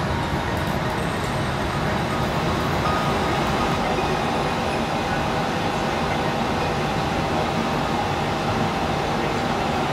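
Gas-fired glassblowing furnace running with a steady, even noise, a few faint steady tones in it.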